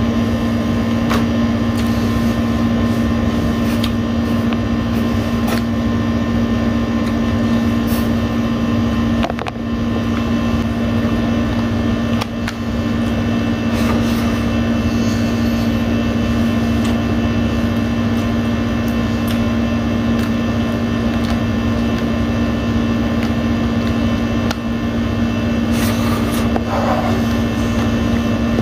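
Air conditioner running with a loud, steady hum, with faint scattered clicks of hand-eating and chewing over it.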